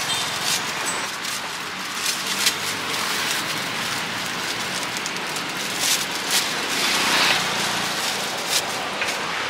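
Thin plastic bags crinkling and rustling as hands work them: many small irregular crackles over a steady background hiss.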